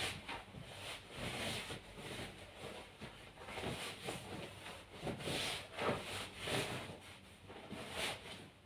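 Fabric rustling and rubbing in irregular swishes as a pillow is worked into a pillowcase.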